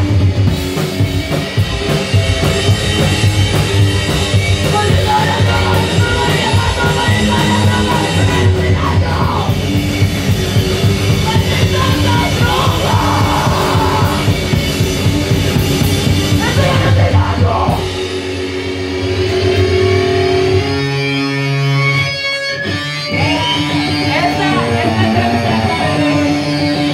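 Live heavy rock band playing loud: distorted electric guitar, bass and drum kit, with a singer at the microphone. About two-thirds of the way through, the full band drops back, and a thinner stretch of guitar carries on before the band comes back in.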